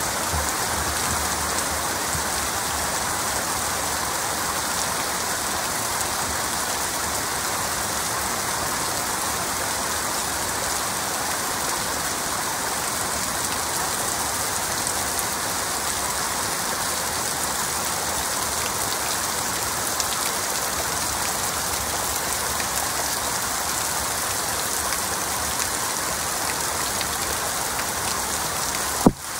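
Heavy rain falling steadily, an even hiss of drops. A single sharp click comes just before the end.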